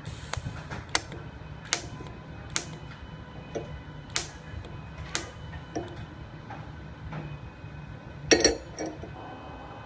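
TIG welding on thin stainless steel with a homemade TIG welder converted from a stick welder: sharp snapping clicks about once a second over a steady low hum, with a louder crackling burst about eight seconds in.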